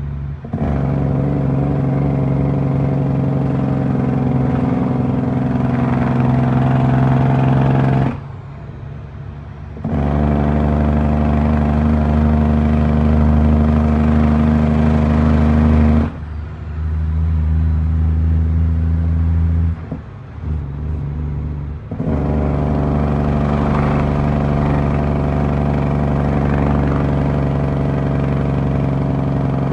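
Western Star truck's diesel engine running under way, heard from inside the cab with a steady engine note. The sound falls away briefly three times, about eight, sixteen and twenty seconds in, and picks up again at a different pitch each time.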